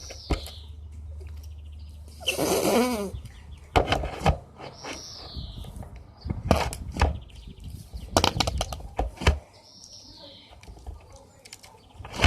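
Slime being squeezed and worked by hand, giving a series of irregular wet squelches and pops, like farting, as air is pushed out of it; a longer, louder one comes about two seconds in.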